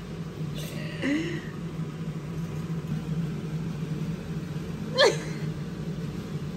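Steady low hum, with a short rising voice sound about a second in and one sharp, falling squeak about five seconds in.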